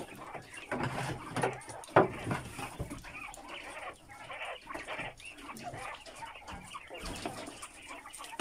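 A caged flock of white giant quail clucking and calling. Sharp clicks and knocks run through it as the birds feed at a metal trough, and one loud knock about two seconds in stands out.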